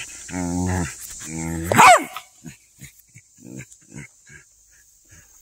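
Old dog, nearly 15, barking while lying on her back: two drawn-out low barks in the first two seconds, the second rising sharply in pitch at its end. After that come short, soft rustles as she rolls in the grass.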